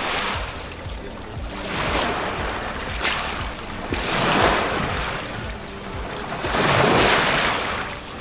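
Small sea waves washing onto the shore, swelling and falling back every two to three seconds, with music underneath.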